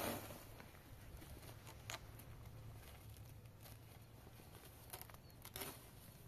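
Faint rustling of a rolled quilt being pushed up onto the top of a cinder-block wall, with a few light taps and clicks.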